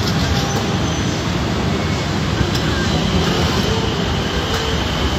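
Steady city street traffic noise: a constant mix of engines and tyres with no breaks.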